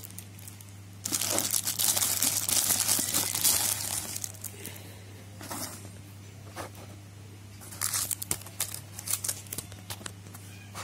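Clear plastic wrapping crinkling and rustling as it is pulled off a small ceramic idol by hand. The longest, loudest bout comes about a second in and lasts about three seconds, followed by shorter rustles.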